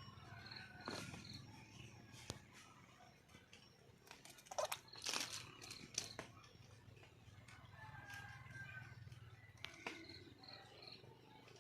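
Red junglefowl calling faintly, with short calls scattered through and the loudest ones about five seconds in.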